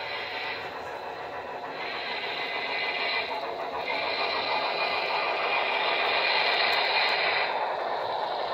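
HO-scale Broadway Limited Paragon 3 Y6b steam locomotive model and its freight cars running on the track, a steady hiss and rumble from the locomotive's onboard sound system and the wheels. It grows louder partway through as the locomotive passes, and the higher hiss drops out briefly twice.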